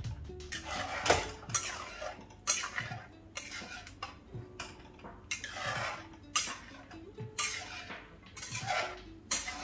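Cooked pav bhaji vegetables being mashed in a pan: a masher knocking and scraping against the pan, in uneven strokes about once a second.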